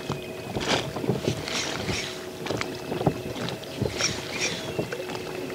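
Scattered small knocks and clicks of fishing tackle being handled in a small boat, over a faint steady hum and wind on the microphone.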